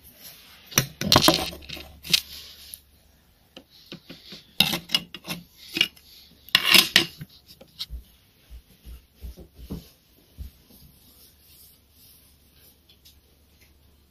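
Handling noise: small hard objects rubbing and clattering in three short bursts, followed by scattered light clicks that die away near the end.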